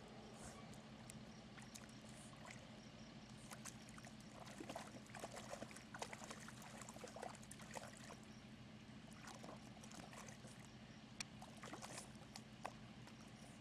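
Boston terrier puppy pawing, biting and splashing in a shallow mud puddle: faint, irregular wet slaps and squelches, busiest in the middle.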